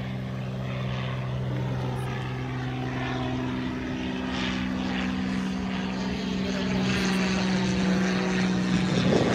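Small single-engine propeller airplane flying overhead, its engine a steady drone that grows louder toward the end.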